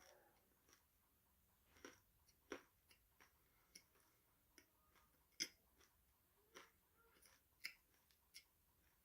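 A person chewing crunchy food close to the microphone: scattered sharp crunches at uneven intervals, the loudest about halfway through.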